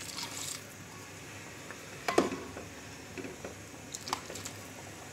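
Hot water poured from a bowl into a kadai of tomato rice, splashing briefly at the start, with two sharp knocks against the pot about two and four seconds in.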